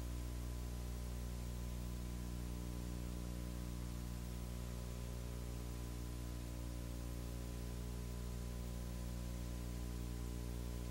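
Steady electrical hum with a constant hiss, with no voices or events: the background noise of an old videotape recording with no spoken soundtrack.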